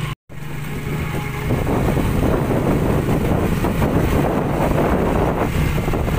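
Small motorcycle riding along, its engine humming steadily. About a second and a half in, loud wind buffeting on the microphone takes over and stays, drowning out the engine. There is a brief cut-out just after the start.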